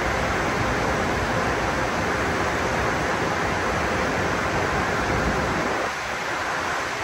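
Tunnel car wash blower dryers running, a loud steady rush of air. About six seconds in, the low rumble drops away.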